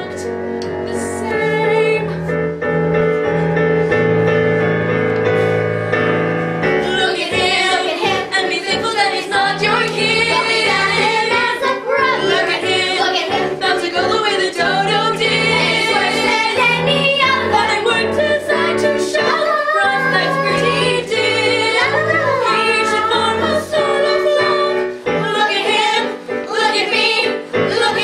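Live stage-musical song: held accompaniment chords for several seconds, then from about seven seconds in singing with vibrato carries on over the accompaniment.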